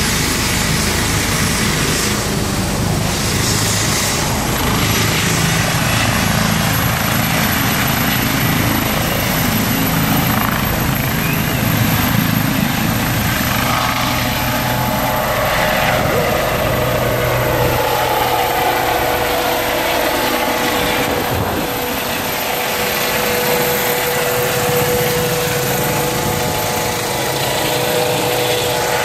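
ADAC rescue helicopter's turbine engines and rotor running at take-off power as it lifts off, steady and loud. A high turbine whine climbs in pitch a few seconds in, and a steady humming tone joins about halfway through.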